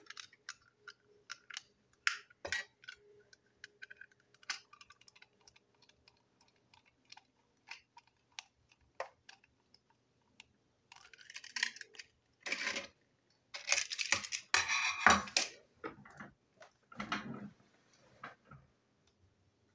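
Small plastic toy railway wagon being taken apart and put back together with a screwdriver: scattered light clicks and taps of plastic parts and the metal tip, then a few seconds of heavier handling clatter and rustling about two-thirds of the way through.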